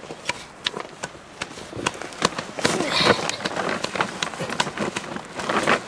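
Irregular taps and scrapes as flour is wiped and knocked off the upper stone of a hand-turned stone quern over a plastic sheet.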